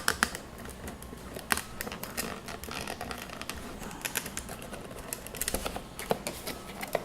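Irregular clicks and taps of hard plastic as a camera is worked at in its plastic packaging stand, trying to get it loose.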